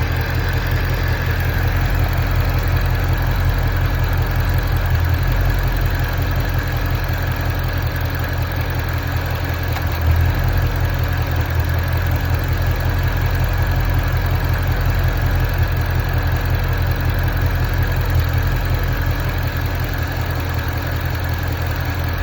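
Ford Mustang GT350's V8 idling steadily, a deep even pulsing with mechanical noise over it, recorded for the noises it makes at idle.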